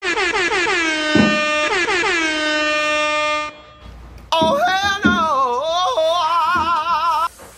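Intro music: two long horn-like blasts, each dropping in pitch as it starts. After a short gap comes a wavering melody with vibrato, sung or played on a synth.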